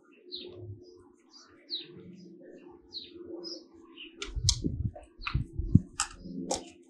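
Small birds chirping in short high calls, with a faint steady hum underneath. From a little past halfway, a run of sharp clicks and knocks of parts being handled, the loudest sounds here.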